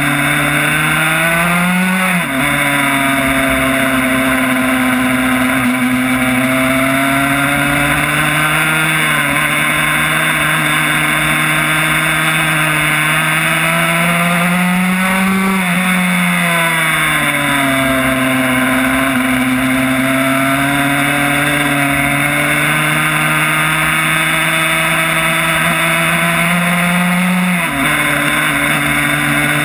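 Yamaha YZ85 two-stroke single engine in a Honda RS125 road-racing bike running hard on track. Its pitch climbs, then drops sharply at upshifts about two seconds in and again near the end, and falls back more slowly in the middle. Wind rushes steadily over the fork-mounted microphone.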